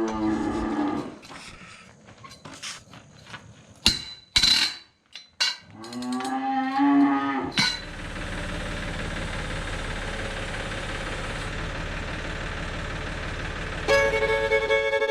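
Cattle mooing, a long call at the start and another about six seconds in, with a few sharp metallic knocks between them. After that a steady mechanical running noise sets in, and music comes in near the end.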